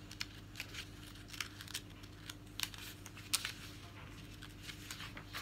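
Magazine pages being turned and handled: a string of soft, irregular paper rustles and crinkles.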